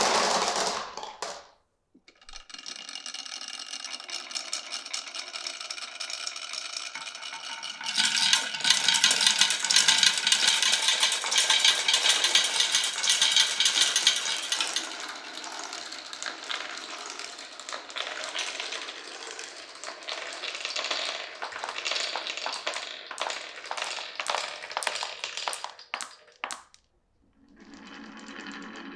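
Marbles rolling and clattering along a wooden marble run: a steady rolling sound with a ringing tone. It grows louder and denser from about eight seconds in, then breaks up into scattered clicks as marbles knock against the track and each other. It stops briefly just after the start and again near the end.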